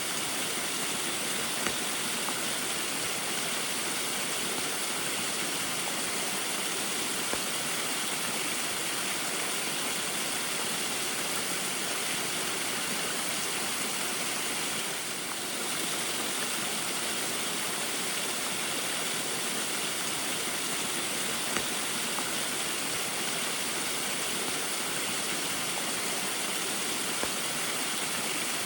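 Small waterfall running steadily in the rain, an even rushing of water with a brief dip in level about halfway through.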